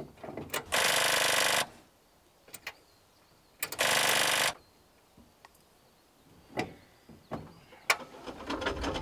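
UAZ off-roader's engine being cranked in two short bursts of about a second each that do not catch, with clicks and knocks in between: the engine will not start.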